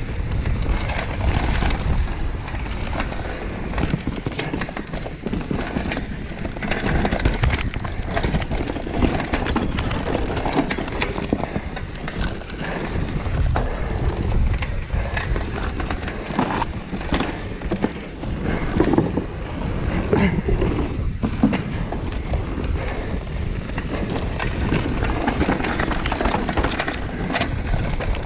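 Enduro mountain bike descending a fast dirt trail: a steady rumble of tyres on dirt, broken by frequent clattering knocks of the bike over bumps and roots.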